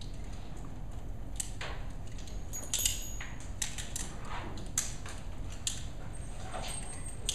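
Scattered metallic clicks and clacks as several shooters unload their revolvers at once, over a low steady hum.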